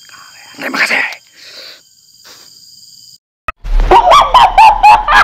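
Faint steady insect drone with a short, loud vocal sound about a second in. Then the sound cuts out and a loud electronic outro jingle begins, made of quick swooping pitched notes that rise and fall several times a second.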